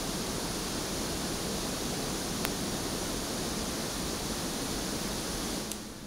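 Pink noise test signal playing steadily, used to measure a Shure Beta 58's frequency response on a real-time analyzer; it stops shortly before the end. A single click about two and a half seconds in.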